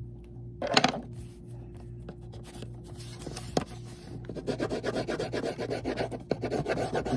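Colored pencil rubbing on paper, coloring in with rapid back-and-forth strokes that pick up strongly about four seconds in. Near the start there is a short, loud rustle of handling.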